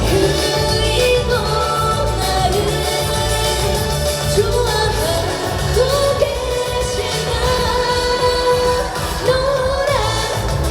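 A woman singing a Korean trot song live over an amplified backing track with a steady beat, holding long notes with vibrato.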